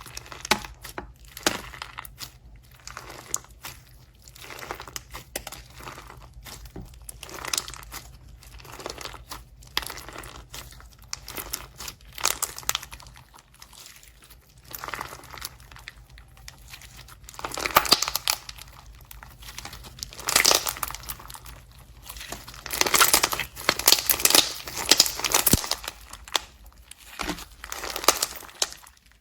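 Slime being squeezed, stretched and pressed by hand, making a run of short, irregular crackles and pops that grow louder and busier in the second half.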